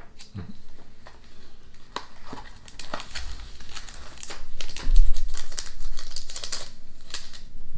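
Paper sleeves of After Eight chocolate mints rustling and crinkling as they are handled and the thin mints slid out, with a low thump about five seconds in.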